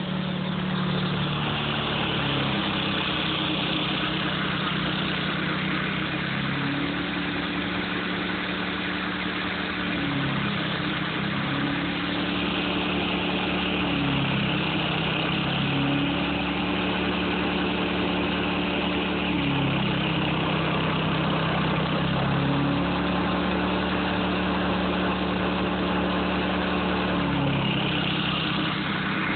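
Briggs & Stratton gas engine of a Dayton pressure washer running steadily under load, with the hiss of the water jet from the spray wand. The engine note steps between two pitches every few seconds.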